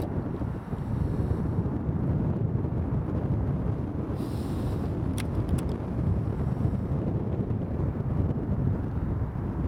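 Wind buffeting a camcorder's microphone: a steady, fluctuating low rumble, with a few faint clicks about five seconds in.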